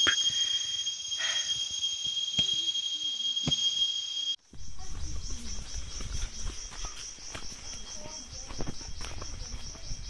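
A high-pitched insect chorus shrills steadily. About four and a half seconds in it drops out for a moment, then comes back as a rapid, pulsing insect chorus over a low rumble, with faint voices.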